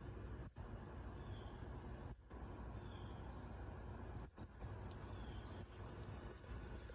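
Faint, steady high-pitched trilling of an insect chorus, with three soft, brief chirps spread through it.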